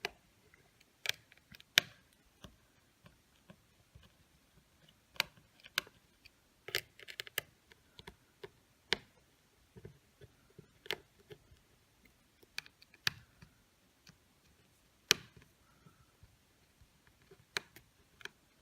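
A small Phillips screwdriver clicking against the tiny screws at the top of an iPhone's internals as they are loosened. The clicks are sharp and irregular, with a quick run of them about seven seconds in.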